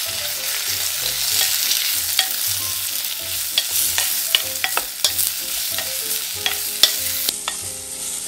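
Spareribs, shiitake and carrot sizzling in sesame oil in a clay donabe rice pot while being stirred, with frequent sharp clacks of the spatula against the pot. The sizzle eases a little near the end.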